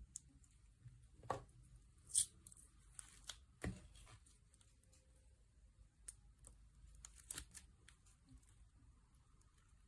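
Hands working a squishy stress-relief toy: scattered soft crackles and clicks, a few sharper ones about a second, two seconds, three and a half seconds and seven seconds in.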